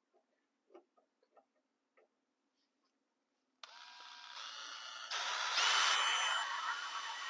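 A few light handling clicks, then about three and a half seconds in a power drill starts up, its whine rising to speed, and runs steadily as a 1/16-inch bit drills a pilot hole into a boot sole. It gets louder for about a second partway through.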